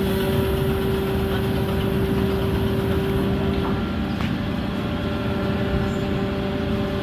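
Cargo ship's engine running steadily: an even, loud machinery hum with constant low tones.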